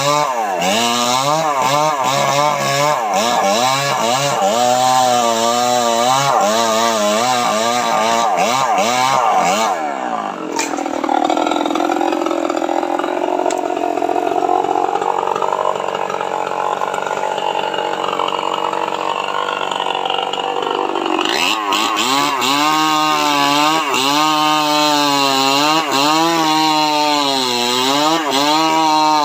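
Two-stroke chainsaw cutting jackfruit wood, its engine pitch rising and falling every second or so. From about ten seconds in until about twenty-one seconds it holds a lower, steadier pitch, as the engine labours in a cut, then goes back to rising and falling.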